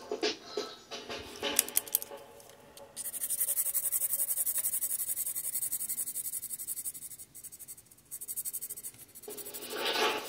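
Ink pen scratching across paper, with scattered light strokes at first, then from about three seconds in a fast, even run of back-and-forth hatching strokes that carries on for about six seconds.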